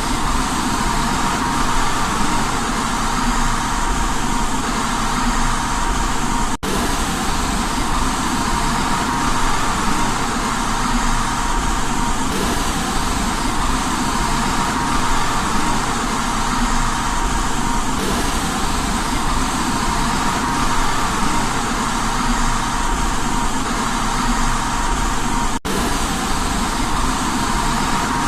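Steady white-noise hiss for baby sleep, even and unchanging, with a faint steady tone near the middle of the sound; it cuts out for an instant twice, about a quarter of the way in and near the end.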